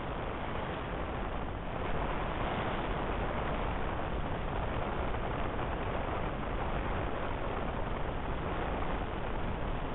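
Steady rushing airflow noise heard from inside a glider's cockpit in flight, growing a little louder about two seconds in.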